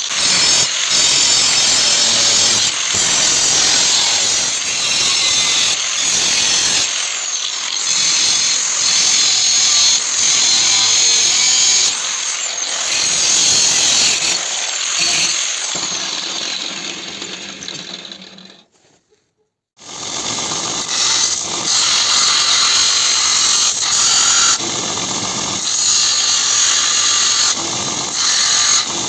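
Power tools running on steel: a loud, hissing, high-pitched machine noise that stops and restarts abruptly several times, with a few brief rises and falls in pitch. It cuts out to silence for about a second around two-thirds of the way through, then resumes.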